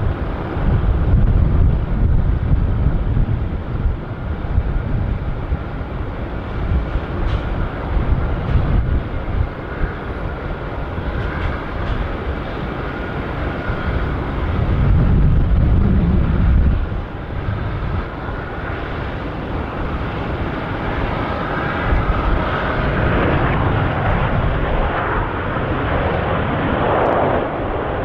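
Jet noise from an Airbus A380's four Rolls-Royce Trent 900 turbofans as the airliner touches down and rolls out along the runway: a steady, loud rumble that swells about fifteen seconds in.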